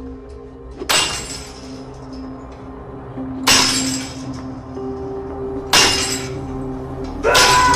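Heavy metallic crashes on a chained chain-link gate: three single hits a couple of seconds apart, then a quick run of hits near the end, each with a ringing tail. A dramatic music score with held tones plays underneath.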